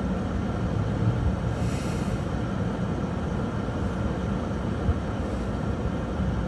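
Steady low rumble with a faint hiss, no distinct events.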